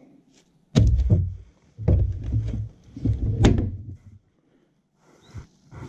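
A bagged rat dropped into an empty plastic wheelie bin lands with a hollow thump about a second in, then the bin's plastic lid is shut with a few more knocks, the loudest about three and a half seconds in.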